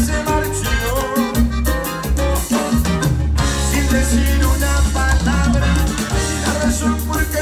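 Live band music with accordion, acoustic guitar, drum kit and congas playing together over a steady beat and a strong bass line.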